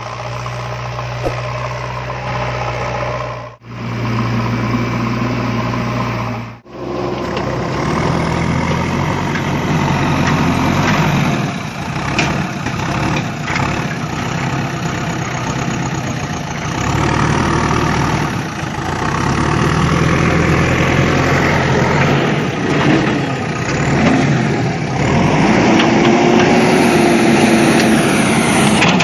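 Engine running, idling and revving, broken by two abrupt cuts a few seconds in; after them it runs on with rises and falls in pitch.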